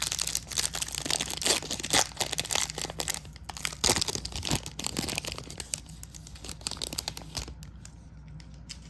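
An Upper Deck NHL Series One hockey card pack being torn open: its foil wrapper crinkles and crackles in a dense run for about seven and a half seconds, then stops.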